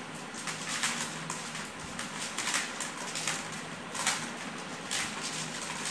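Dried maize kernels being rubbed off the cobs by hand and falling into a plastic tub: an irregular dry rasping rattle, about two strokes a second.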